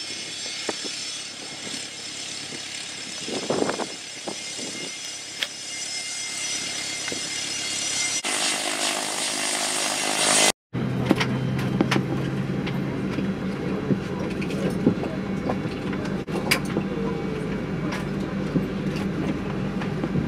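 Fokker 70's Rolls-Royce Tay turbofans whining with many high tones, growing louder as the jet rolls along the runway, heard from outside. About halfway through, a sudden cut to the steady low hum inside the parked jet's cabin, with a few light clicks.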